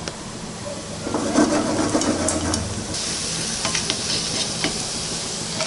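Sabudana (sago) sticks deep-frying in hot oil, sizzling steadily. The sizzle swells about a second in and settles into a steady high hiss. A few light clicks come from a perforated metal frying spoon stirring the sticks in the oil.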